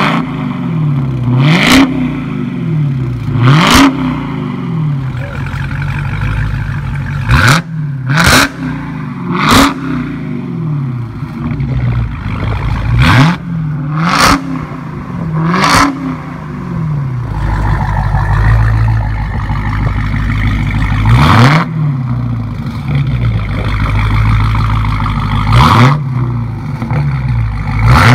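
Dodge Challenger Hellcat's supercharged 6.2-litre V8 blipped repeatedly at standstill through a Kinney's Tunnel Ram performance exhaust: about ten quick revs, each a rising and falling pitch with a sharp bark at the top. Midway there is a steadier low rumble between revs.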